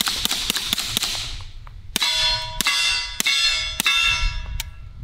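Suppressed Staccato P 2011 pistol firing a fast string of shots, then four more shots about half a second apart, each followed by the ringing of a struck steel target.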